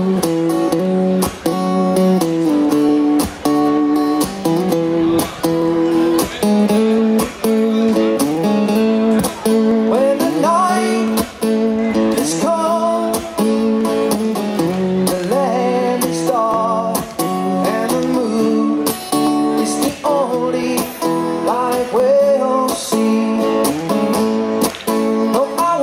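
Two acoustic guitars played together live through a stage PA, strummed in a steady rhythm.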